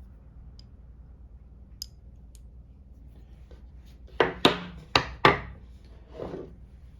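Hand ratchets being handled: a few faint clicks, then four sharp metal clacks in quick succession as the tools knock together or are set down, followed by a softer scrape.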